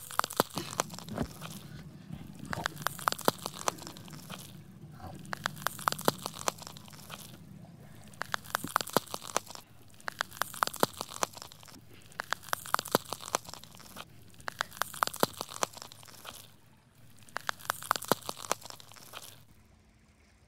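Repeated crunching: about eight bursts of rapid crackling, one every two seconds or so, stopping shortly before the end.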